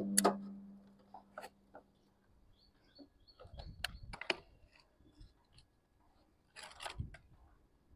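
Scattered faint clicks and knocks of wires and plastic being handled at an air-conditioner outdoor unit's terminal block, with a low steady hum that dies away about three seconds in.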